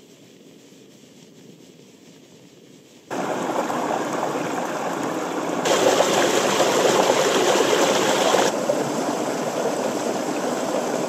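A small mountain stream splashing and rushing over boulders, an even noise that cuts in suddenly about three seconds in after faint background, and is louder for a few seconds in the middle.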